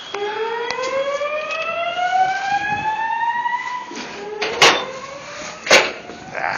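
Building fire alarm voice-evacuation system sounding its whoop tone: a slow rising sweep over about three and a half seconds that starts again about four seconds in. Two sharp knocks come about a second apart in the second half.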